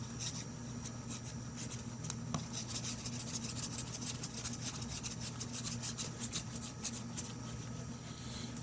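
Eternabond roof tape being rubbed and smoothed down onto an RV ladder foot plate: a run of short scratchy strokes, over a steady low hum.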